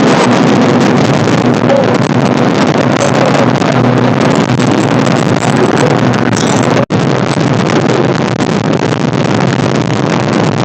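Motorboat engine running with heavy wind buffeting the microphone, a steady low hum under a loud rush of noise. It breaks off for an instant about seven seconds in, then carries on.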